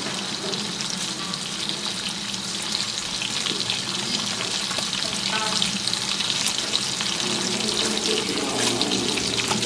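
Steady hiss like running or frying water, with fine crackles scattered through it.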